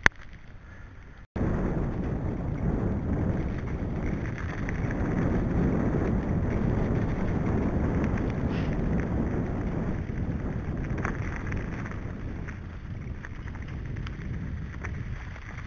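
Wind buffeting the microphone and tyres rumbling over a rough woodland trail as a bicycle rides fast, starting abruptly about a second in, with a few light rattles and knocks from the bike.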